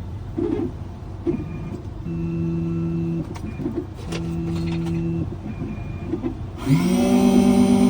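Computerized key-cutting machine cutting a key: its positioning motors hum in two runs of about a second each between small clicks, then near the end the cutter spindle spins up into a loud steady whine.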